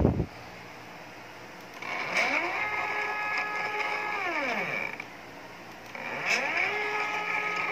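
NEMA 17 stepper motors driving a robotic arm joint through a 3D-printed 27:1 gear train, making two moves. In each, the motor whine rises in pitch as it speeds up, holds steady, then falls away as it slows to a stop.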